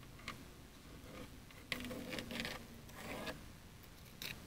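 Several short scraping and rubbing strokes from gloved hand work on a resin-wet fiberglass layup, the longest run of them about two seconds in.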